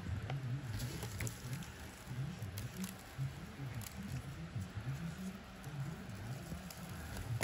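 Sand tossed by hand onto resin-coated reef rock, pattering as the grains land, with a few small ticks.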